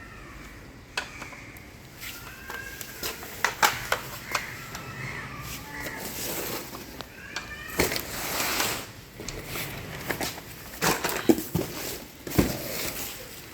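Irregular clicks, knocks and short scrapes of hands and tools working on a hybrid battery pack, as parts are pressed into place.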